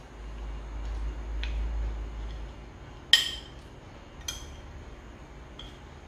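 Metal spoon clinking against a ceramic plate while scooping cheesecake: one sharp ringing clink about three seconds in, and a lighter one about a second later.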